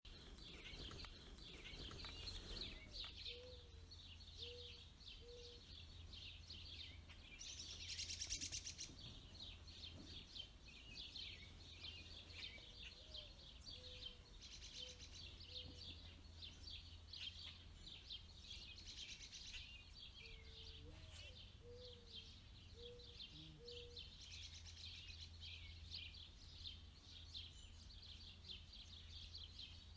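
Faint, continuous high peeping of Canada goose goslings, with a few short lower notes in little runs of three or four. About eight seconds in there is a brief louder rush of noise.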